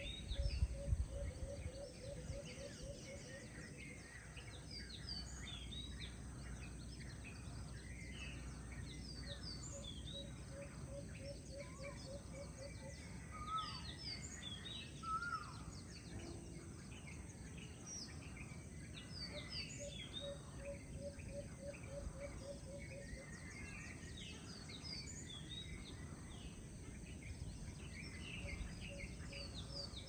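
Birds calling outdoors: many short high chirps and whistles overlapping throughout, with a low note repeated about five times a second in runs of two to three seconds that come back several times. A steady low rumble lies underneath, with a brief louder low bump about a second in.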